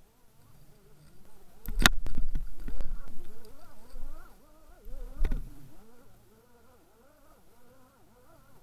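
Two hard knocks on an underwater camera housing, about two seconds in and again past the middle, with low rumbling and smaller knocks between, as cod bump against the camera. A faint warbling hum runs underneath.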